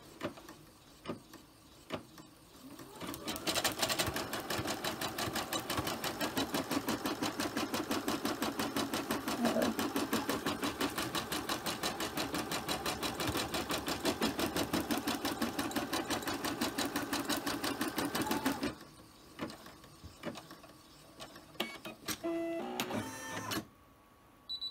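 Brother SE425 embroidery machine stitching at speed, a fast even needle rhythm that starts about three seconds in and stops a few seconds before the end. It is sewing a square outline that tacks a floated piece of felt to the back to form a pouch. A few clicks follow, then a short high beep at the very end.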